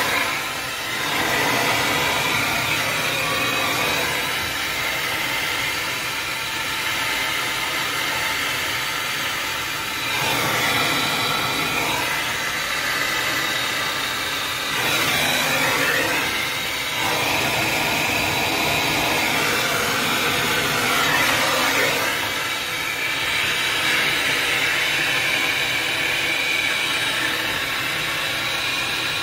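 Handheld gas torch flame hissing steadily as it heats copper pipe joints on a brass shower diverter valve for soldering.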